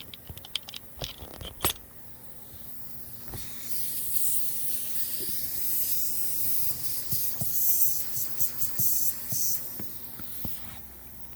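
Air hissing out of a leak in a four-wheeler tire pumped to about 10 psi, after a few clicks and knocks of handling; the hiss starts about three seconds in and fades near the end.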